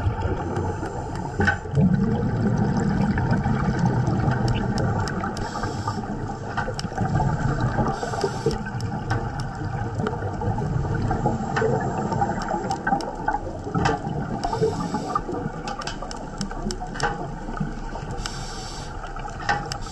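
Underwater ambience: a steady wash of water noise with gurgling, and many short sharp clicks scattered throughout.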